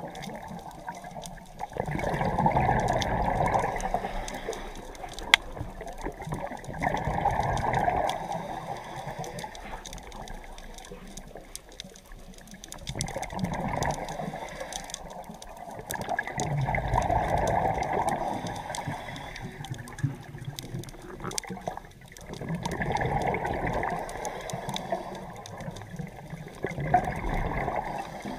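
A scuba diver breathing underwater through a regulator. The exhaled air bubbles past in rushing spells of two to three seconds, about every five seconds, with quieter stretches between them. A single sharp click comes about five seconds in.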